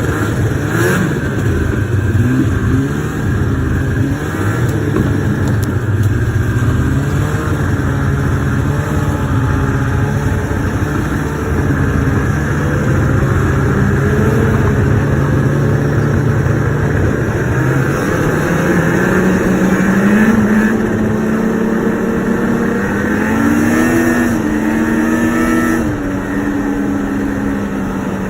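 Two-stroke snowmobile engine running under way, its pitch rising and falling with the throttle and climbing higher in the last third.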